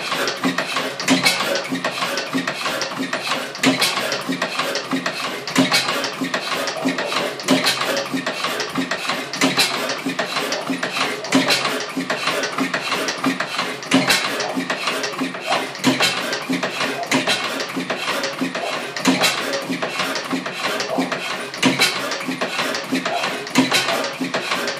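1907 Blackstone 3hp hot bulb oil engine running, with a fast, even mechanical clatter and a louder beat every couple of seconds. It runs a little unevenly, with some work still needed to smooth it out.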